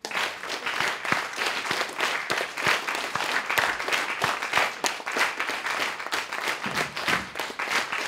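An audience hand-clapping all together, each person improvising their own rhythm over a shared tempo: dense, overlapping claps with no single beat, starting all at once.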